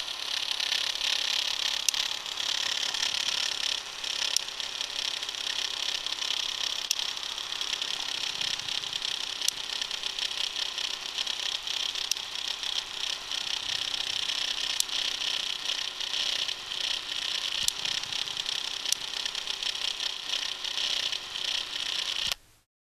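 Spring-wound clockwork drive of a 1955 Dresden-built AK8 8 mm cine camera running: a steady high whir with a few faint clicks, cutting off suddenly near the end.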